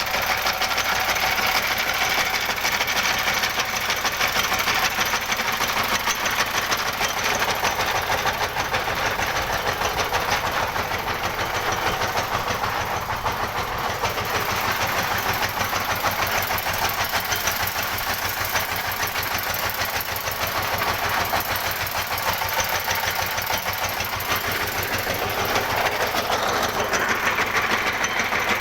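Well-drilling machine running steadily, its motor giving a rapid, even pulsing.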